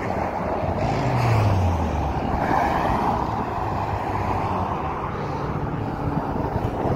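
A car driving past at speed, its engine note dropping in pitch as it goes by about a second in, with wind noise on the microphone.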